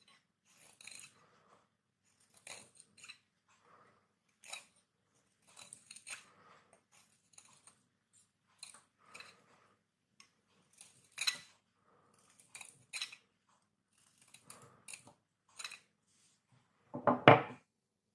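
Knife blade cutting and shaving a bar of hard Lux soap: a string of short, crisp cuts every second or so as flakes break off. A louder cluster of knocks comes near the end.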